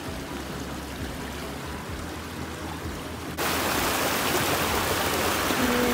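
River water rushing over rocks in a steady wash. About three and a half seconds in it jumps suddenly louder and hissier, close to whitewater spilling over a low rock ledge.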